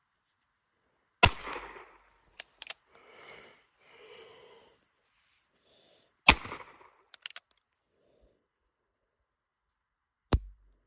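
Three revolver shots (.22 LR), each a sharp crack with a short echo, spaced about four to five seconds apart. Light clicks follow the first two shots.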